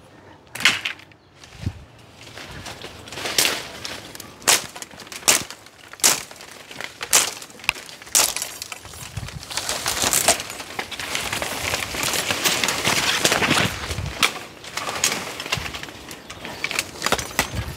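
A machete chopping bamboo stalks in a bamboo clump: irregular sharp knocks about once a second, with leaves and branches rustling and crackling in between.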